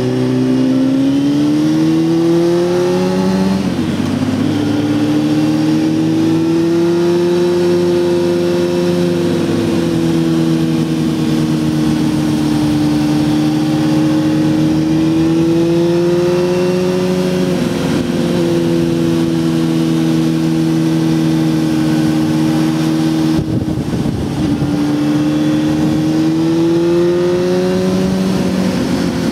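Honda Hornet 600's inline-four engine pulling under way, heard from a helmet-mounted camera. Its pitch rises for the first few seconds and falls back about four seconds in. It then holds a fairly steady pitch with small rises and falls, dipping and climbing again in the last few seconds.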